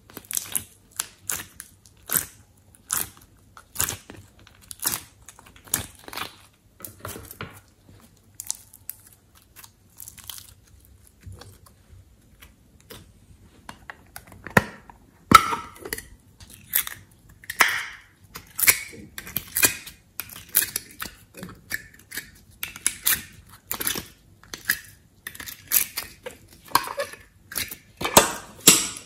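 Thin plastic ice-cube tray and plastic slime box being flexed and handled while slime is pressed and pulled out of them: a series of sharp crackling clicks with some squishing, about one a second at first, quieter for a stretch in the middle, then denser and louder in the second half.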